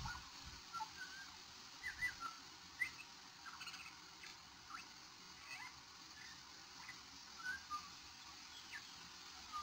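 Australian magpie giving a quiet, scattered run of short chirps and whistles, some rising and some falling in pitch: the soft varied song in which it mimics other birds.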